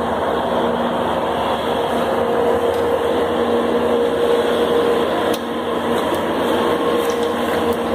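A steady mechanical whir with a low, constant hum under it, holding level throughout.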